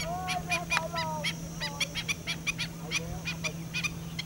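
Black-winged stilts calling: a fast run of sharp, yelping notes, about five a second, with some lower sliding calls mixed in near the start.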